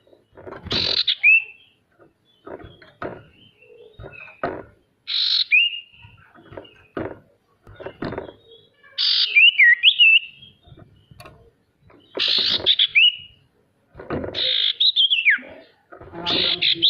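A sirtu songbird calling again and again, about six times, each call a harsh rasping burst that ends in a short whistled note sliding up or down. Soft low knocks fall in the gaps between the calls.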